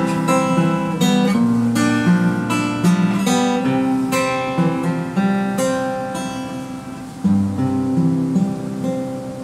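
Solo acoustic guitar playing the instrumental close of a song, picked and strummed chords that slowly get quieter. About seven seconds in a low chord is struck and rings out, followed by a few softer notes as it fades.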